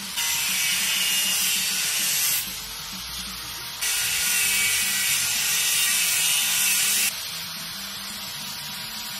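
Corded angle grinder's cutoff wheel cutting through metal plate held in a vise, in two cuts: one of about two seconds, then after a short pause a longer one of about three seconds.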